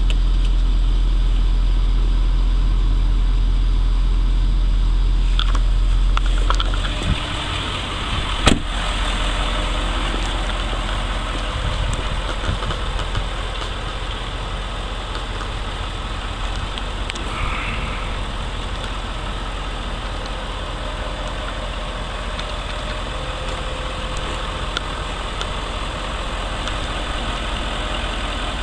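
A vehicle engine idling steadily. It is deep and low for the first seven seconds, then lighter and hissier. There is one sharp click about eight and a half seconds in.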